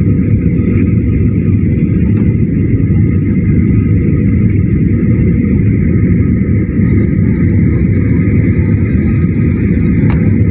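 Steady cabin noise of a flydubai Boeing 737 on final approach, heard inside the cabin: a low rumble of engines and airflow over the extended flaps, with a faint steady whine above it. A brief faint click comes near the end.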